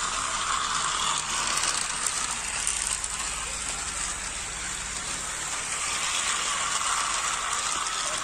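Several battery-powered plastic toy trains running together on plastic track: their small motors and gearboxes whir and the wheels clatter steadily over the rails.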